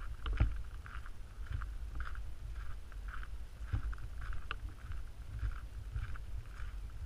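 Footsteps crunching on a gravel path at walking pace, about two steps a second, over a steady low rumble.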